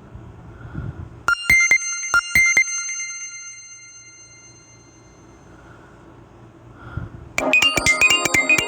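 Nokia E5 ringtones played on a Samsung Galaxy A51. About a second in comes a short phrase of about six quick, high electronic notes that ring out. After a lull, a busier electronic ringtone with rapid repeating notes starts near the end.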